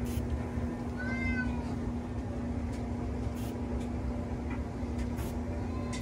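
A cat meows once, briefly, about a second in, over a steady low hum.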